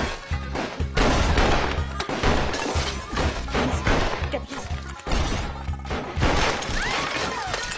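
Action-film soundtrack: a music score with a heavy bass line, mixed with repeated crashes and shattering glass.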